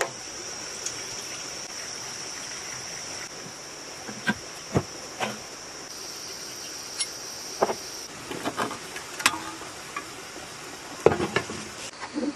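Scattered sharp metal clinks and taps of hand tools and loose parts as an old diesel generator engine is taken apart, a cluster of them near the end. Under them runs a steady high-pitched drone that fades somewhat partway through.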